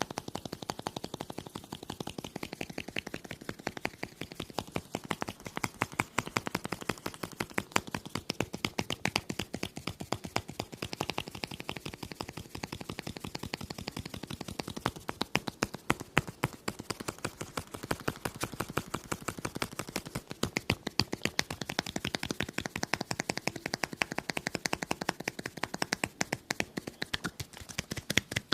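Rapid, continuous clicking, many sharp clicks a second without a break, some louder than others.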